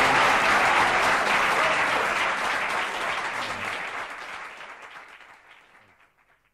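Audience applauding at the close of a live song, the clapping fading out over the last couple of seconds.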